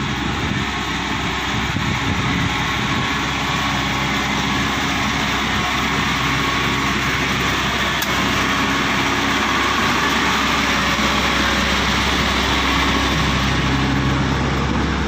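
Rice combine harvester running steadily, its engine hum under a broad, even machinery noise.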